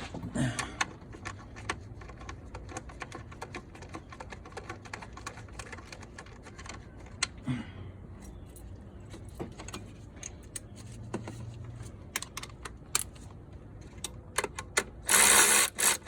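Hand socket ratchet clicking in quick runs as intake manifold nuts are run down snug, with a louder, harsher burst of about a second near the end.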